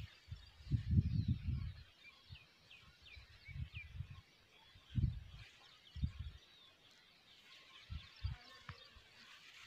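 Gusty wind buffeting the microphone in irregular low rumbles, loudest about a second in and again around five seconds, with small birds chirping faintly in the background.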